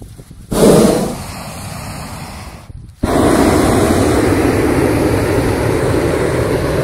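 Hot-air balloon propane burner firing: a sudden loud burn about half a second in that eases off, a short break near three seconds, then a long steady burn.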